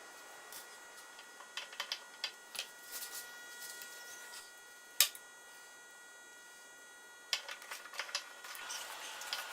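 Scattered light clicks and taps of small metal parts and hand tools being handled, with one sharp, louder click about five seconds in and another run of clicks near the end, over a faint steady hum.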